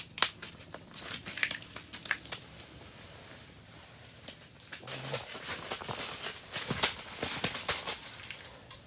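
Irregular crinkling and sharp clicking, like something being handled close by, with a quieter stretch in the middle.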